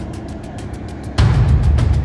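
Background music with a steady beat and heavy bass; it drops back for about a second, then the bass and drums come back in suddenly just over a second in.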